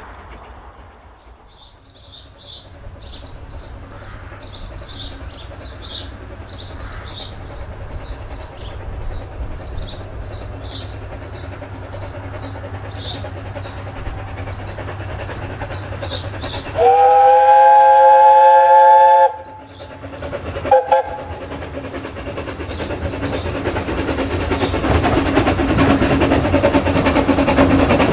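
Narrow-gauge steam locomotive Talyllyn Railway No. 3 'Sir Haydn', an 0-4-2 saddle tank, sounds its whistle once long, for about two and a half seconds, then gives a short toot. After that the locomotive and its coaches get steadily louder as they draw near.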